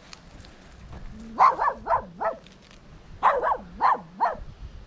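A dog barking in two quick runs of about four barks each, the first starting about a second and a half in and the second a little past the middle.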